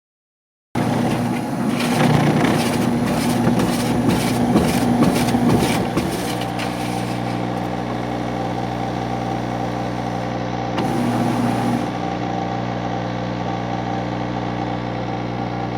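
LG washing machine motor running with a steady hum, while the drum fails to spin. From about 2 to 6 seconds a rapid rattling clatter rides over the hum.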